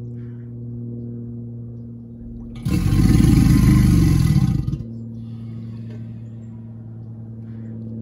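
American alligator giving one loud, rough, low bellow about two seconds long that starts and stops abruptly, over a steady low mechanical hum.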